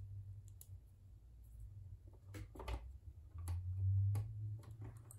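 Faint, scattered clicks and taps of small plastic and metal parts as a Brother sewing machine's bobbin winder assembly is handled and fitted into the machine's frame, over a low steady hum.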